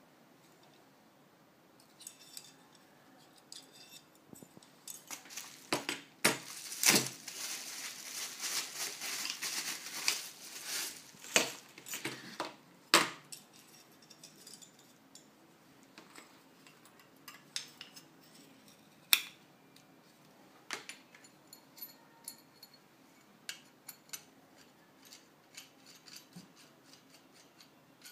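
Metal parts of a knife-sharpener kit being handled and fitted together: scattered clicks and clinks of steel rods and clamp pieces, with a denser stretch of scraping and rustling handling for several seconds in the first half.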